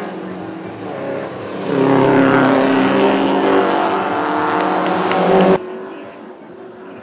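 Subaru Legacy race cars with flat-four engines being driven hard on a gravel track, the engine note climbing sharply about two seconds in as a car accelerates close by. The loud engine sound cuts off suddenly near the end, leaving fainter, more distant engine noise.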